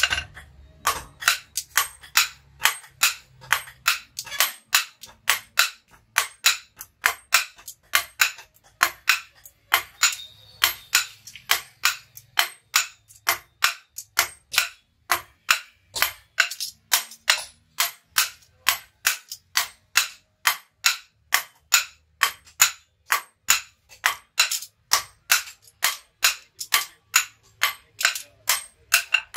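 Hand hammers forging a red-hot billhook blade on a round anvil block, two smiths striking in turn. The sharp metallic blows come in a steady rhythm of about two to three a second.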